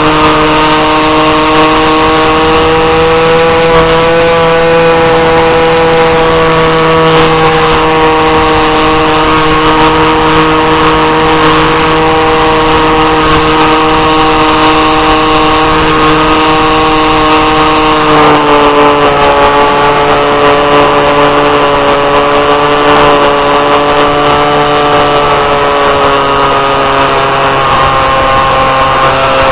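O.S. 25 engine of a 1/4-scale J3 Cub model plane running in flight, heard from inside the fuselage. The note is steady with a noisy hiss over it. It rises slightly about four seconds in, drops to lower revs about eighteen seconds in, and drops a little again near the end.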